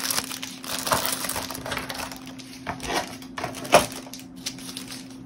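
Hands handling plastic-wrapped craft items on a tabletop: scattered rustles and light knocks, the loudest a little before four seconds in.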